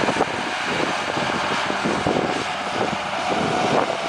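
Pauny articulated four-wheel-drive tractor's diesel engine running steadily under load as it pulls an air drill past.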